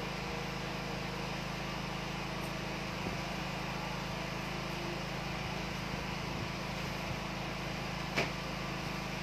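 Steady background hiss with a low hum, and a single short click about eight seconds in.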